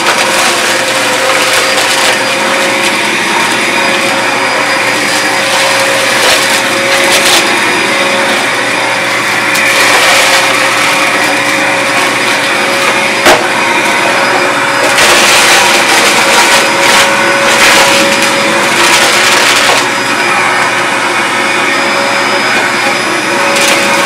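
Bissell CleanView Compact Turbo upright vacuum running steadily with an even motor tone, with several stretches of stronger rattling hiss as it sucks up dry cereal and one sharp click about 13 seconds in.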